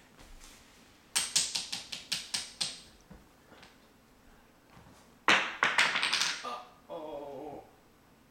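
Two quick runs of sharp taps, about five a second, like a hard object rapped over and over, then a brief wavering voice near the end.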